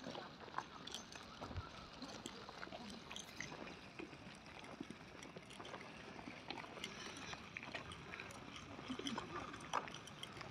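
Footsteps crunching on fine gravel: a quiet, irregular run of soft crunches and clicks.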